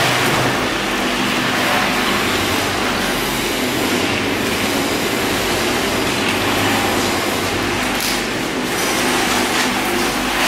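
Drum peanut roasting machine running with a steady mechanical rattle and hum, while raw peanuts poured from a sack slide through its hopper into the drum.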